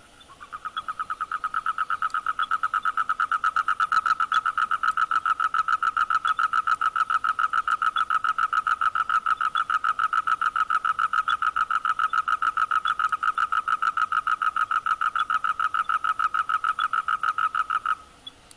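A frog's long, fast, evenly pulsed trill. It swells over the first couple of seconds, holds steady, and cuts off near the end.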